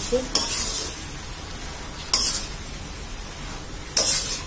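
A spatula stirring chal kumra (ash gourd) greens in a metal wok, with three short scrapes about two seconds apart. A low steady hiss runs underneath.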